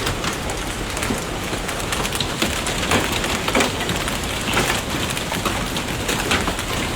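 Steady, loud noise of heavy water, rain or rushing floodwater, with scattered short crackles through it.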